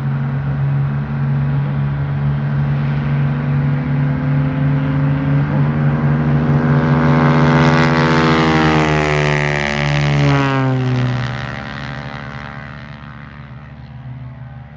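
Cessna 180 light aircraft's six-cylinder engine and propeller at full power passing close by, its pitch sliding down as it goes past about ten seconds in, then fading away.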